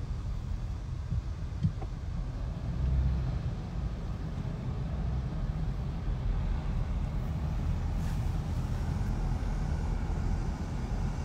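Steady low rumble of a car heard from inside its cabin, with one light knock about two seconds in.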